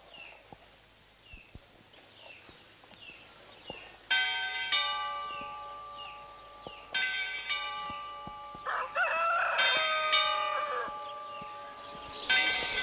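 A bell struck in pairs of strokes about half a second apart, each stroke ringing on and fading, four pairs in all from about four seconds in. A rooster crows around the middle. Faint small chirps repeat in the first few seconds.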